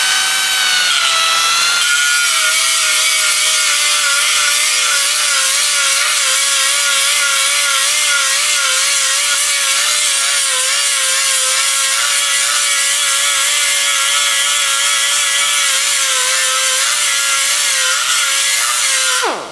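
Small right-angle grinder with an abrasive disc grinding down a TIG weld bead on sheet steel. It runs as a steady whine whose pitch dips and wavers as the disc is pressed onto the metal, and it cuts off just before the end.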